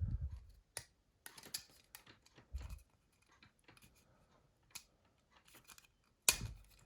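Small clicks, scrapes and taps of hand tools against the plastic and metal parts of a Nokia E71 as its main board is worked loose. There is a dull thump at the start and another about two and a half seconds in, and a sharper knock near the end.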